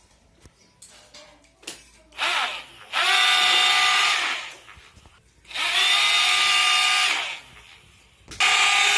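Small electric motor whirring in short bursts: a brief one, then two lasting a second or two each, and another starting near the end. Each burst rises in pitch as the motor spins up and falls as it runs down.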